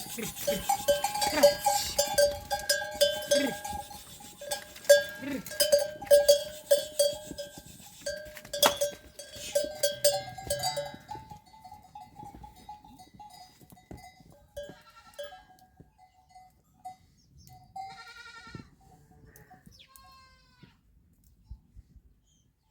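Bells on a flock of sheep clanking and ringing as the animals move, with many small knocks, fading after about eleven seconds. A few wavering bleats follow near the end.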